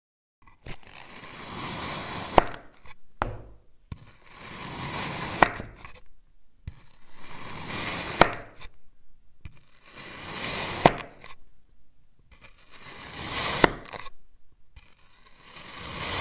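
A knife slicing down through a block of packed sand, six cuts about every three seconds. Each cut is a gritty hiss that swells as the blade sinks in and ends in a sharp tap as the blade meets the surface beneath.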